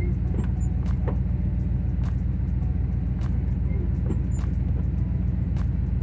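Chevrolet K1500 pickup idling steadily, heard from inside the cab, with the upgraded windshield wiper motor making one intermittent sweep near the start.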